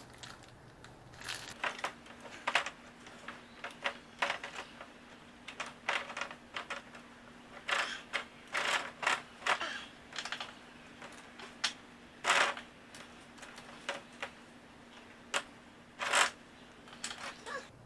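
New EK X-ring motorcycle chain being handled, its links clicking and clinking against each other in irregular bursts, with a faint steady hum underneath.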